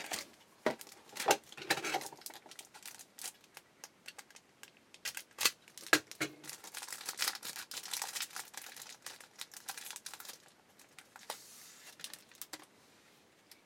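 Foil wrapper of a football trading-card pack crinkling and rustling as it is opened and handled, with scattered sharp clicks and taps.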